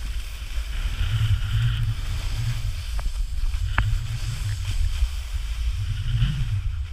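Wind buffeting a pole-mounted GoPro's microphone during a snowboard run, with the board hissing and scraping over the snow. Two short sharp clicks come about three and four seconds in.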